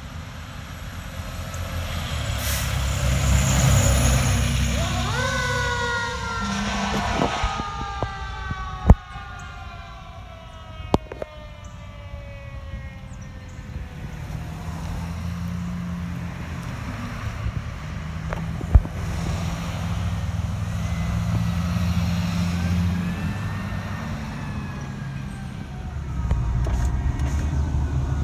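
Fire engine passing with its siren sounding: a pitched wail that rises briefly about five seconds in, then falls slowly over about eight seconds. A low engine rumble runs under it, with two sharp knocks. Near the end it gives way to road noise inside a car.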